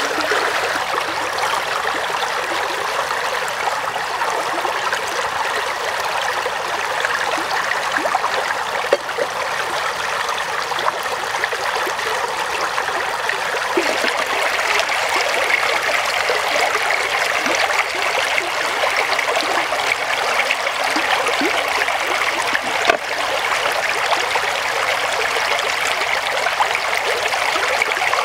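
Shallow stream rushing and splashing over rocks, a steady even wash of water, with a couple of brief knocks about nine seconds in and again near the end.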